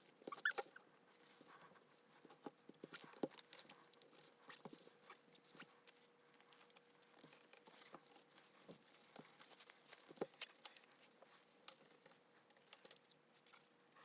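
Faint, scattered small clicks and taps, a slightly louder one about three seconds in and another about ten seconds in, over a faint steady hum.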